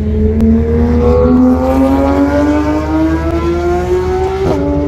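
Supercar engine accelerating hard, its pitch climbing steadily, then dropping suddenly with an upshift near the end and starting to climb again.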